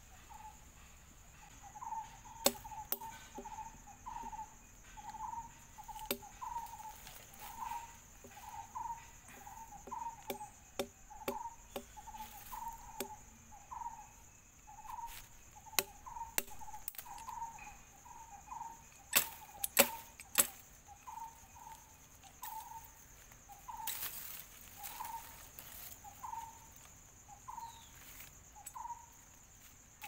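Steady high-pitched insect drone, with a short call note repeated about every two-thirds of a second. Over it come scattered sharp clicks and snaps from twigs and string being handled while a snare is set in the leaf litter, the loudest a cluster about twenty seconds in.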